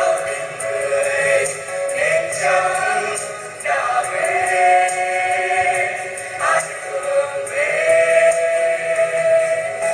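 A song sung with instrumental accompaniment, in phrases of long held notes that waver slightly, heard through a television's speaker.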